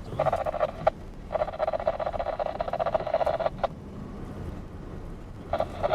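Scanner radio in a truck cab putting out garbled transmissions in three bursts that start and cut off abruptly, with short clicks between them, over the steady low rumble of the truck.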